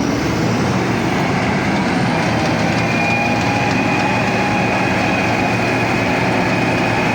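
Dalip combine harvester running steadily, its engine and threshing machinery making a continuous loud mechanical noise, with a thin high whine joining about three seconds in.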